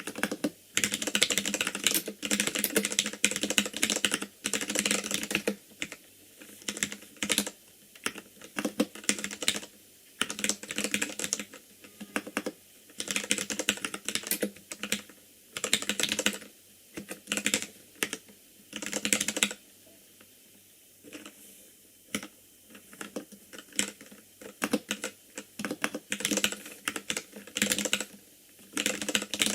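Typing on an ikbc Poker II mechanical keyboard with Gateron Red linear switches: quick runs of keystrokes in bursts, thinning to a few scattered presses for a few seconds about two-thirds through before the typing picks up again.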